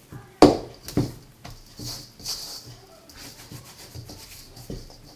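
Hand rubbing spice-coated raw lamb shanks in a stainless steel bowl: the meat squelches and scrapes against the metal as it is worked. There are two sharp thumps within the first second or so.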